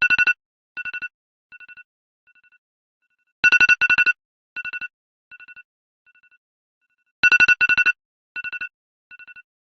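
iPhone alarm ringing: a loud cluster of rapid two-note beeps that repeats about every four seconds, each cluster trailing off in fainter and fainter echoing repeats.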